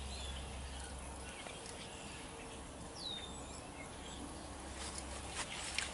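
Quiet background: a steady low hum, with one faint bird chirp about three seconds in and two faint clicks near the end.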